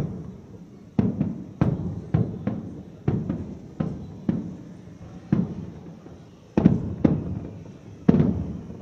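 Aerial firework shells bursting: about a dozen sharp booms at irregular intervals, each trailing off in a rolling echo, with the loudest bangs in the second half.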